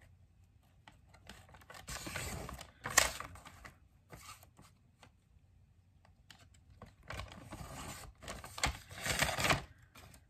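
Paper rustling and scraping under the hands in two stretches, about two seconds in and again from about seven to nine and a half seconds, with small clicks and taps and one sharp click near three seconds.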